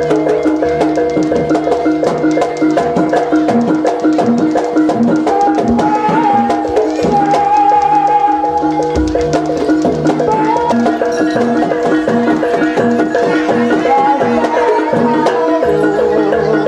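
Javanese jaranan dance music: drums and percussion playing rapid strokes over steady ringing tones. A higher melody line comes in about five seconds in and returns briefly near the end.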